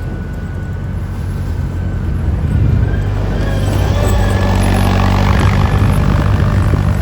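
Heavy snow-removal machinery running, a steady low engine drone that grows louder from about two and a half seconds in as a rushing noise builds over it.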